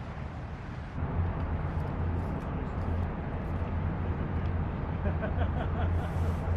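Steady low drone of a passing container ship's engine, starting about a second in over the open-air river ambience.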